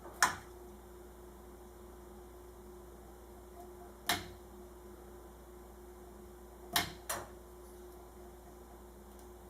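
Sharp clicks of a small hand cutter snipping at electrical wire while stripping its insulation: one right at the start, one about four seconds in, and two in quick succession near seven seconds, over a steady low electrical hum.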